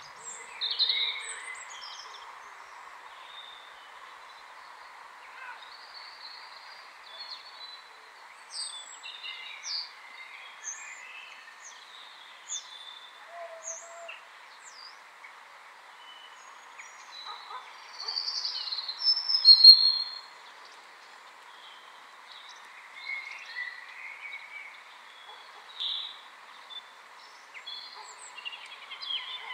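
Songbirds singing and calling, with short chirps and whistles scattered throughout and the loudest burst of song about two-thirds of the way through, over a steady rushing hiss.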